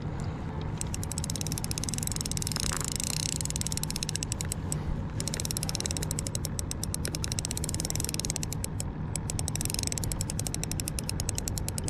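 Spinning reel clicking rapidly and steadily as a hooked fish is fought on the rod, with short breaks about five and nine seconds in.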